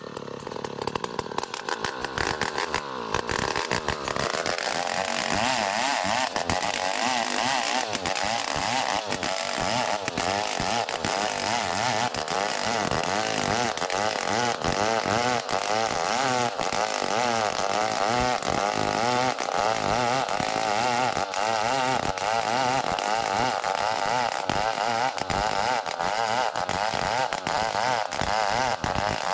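Chainsaw revving up about four seconds in, then running at high speed with its pitch wavering as it cuts through ulin (Bornean ironwood), sawing a small log into a beam.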